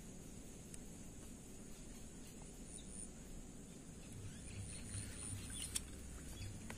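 Faint outdoor ambience of insects chirping, a steady high-pitched drone that pulses in places, with a sharp click near the end.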